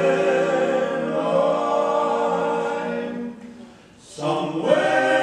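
Barbershop quartet singing a cappella in close four-part harmony: a chord is held for about three seconds and fades, and after a brief pause a new chord begins about four seconds in.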